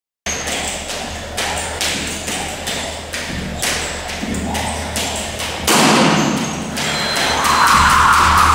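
Skipping rope during a sprint interval: the rope slapping the floor and feet landing in a regular rhythm of about three impacts a second. A steady noisy sound comes in near the end.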